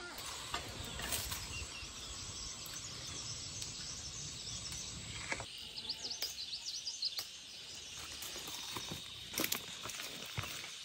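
Outdoor rural ambience: a steady high insect drone with birds chirping briefly partway through, and a few sharp knocks.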